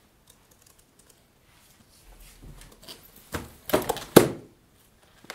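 Rustling and handling of a laptop, starting about two seconds in and rising to a few sharp knocks shortly before the end.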